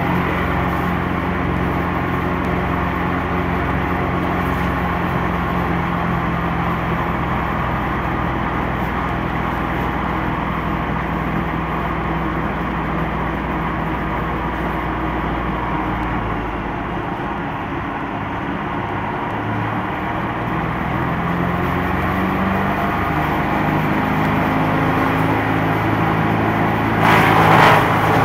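The 41 hp petrol engine of a mobile wood chipper running steadily with no load; its speed dips slightly about two-thirds in and then rises again. Near the end a brief louder rush comes as a leafy branch is fed into the hopper.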